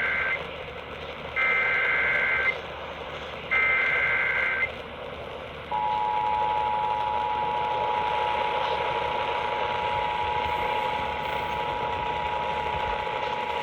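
Emergency Alert System SAME header: three one-second bursts of warbling digital data tones, the first already underway. About six seconds in comes the steady two-tone EAS attention signal. All of it sits over radio receiver hiss, marking the start of an EAS weather alert.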